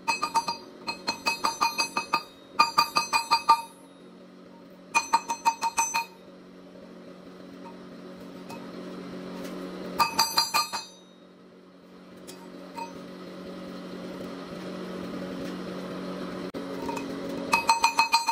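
Hand hammer striking a glowing bar of forged MIG welding wire on a steel-plate anvil, in quick bursts of about five to eight ringing blows: four bursts in the first six seconds, one about ten seconds in and one near the end. Between the bursts a steady low hum builds up.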